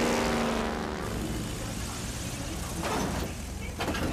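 Light single-engine propeller plane's engine droning with its pitch falling as it flies past, then a few short noisy scrapes as it touches down on grass.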